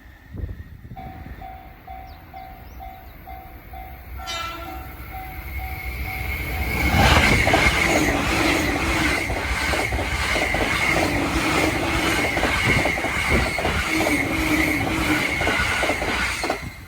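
Japanese level-crossing warning bell ringing in a steady two-note pattern, a short train horn blast about four seconds in, then a Joban Line train passing at high speed from about seven seconds, loud, with a rapid rhythmic clatter of wheels over the rail joints, until it cuts off suddenly near the end.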